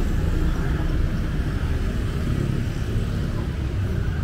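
Busy street traffic: a steady low rumble of motorbike and car engines.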